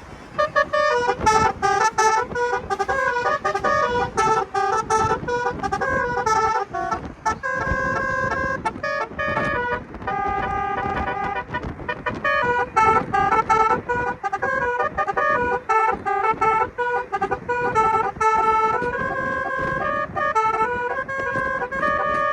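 Basuri telolet musical car horn playing a tune: a string of loud horn notes stepping up and down in pitch several times a second, with short breaks between phrases.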